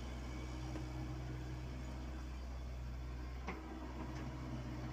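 Komatsu PC78UU mini excavator's diesel engine running steadily under work as the machine swings and digs, with a single sharp knock about three and a half seconds in.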